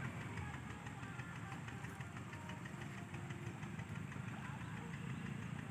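A small engine running steadily at idle.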